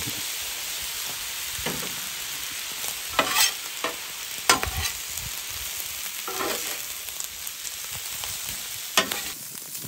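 Fried rice sizzling steadily on the hot steel top of a 17-inch Blackstone griddle, just dosed with soy sauce. A metal spatula scrapes and tosses the rice against the griddle several times.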